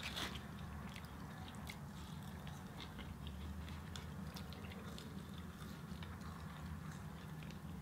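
People chewing McDonald's French fries: soft chewing and scattered small mouth clicks over a steady low hum.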